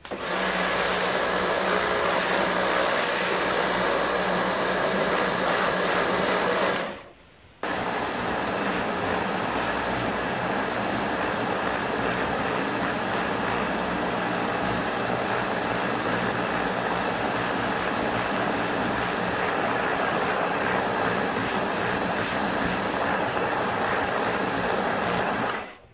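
Karcher K2 compact electric pressure washer running, its high-pressure water jet spraying a brick and the wall behind it: a loud, steady rush of motor and water. It cuts out for under a second about seven seconds in, then starts again.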